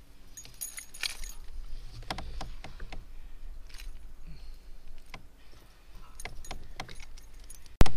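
Small clicks, rattles and a brief splash as a small largemouth bass is lifted from the water into a plastic kayak and unhooked by hand, with one sharp, loud knock near the end.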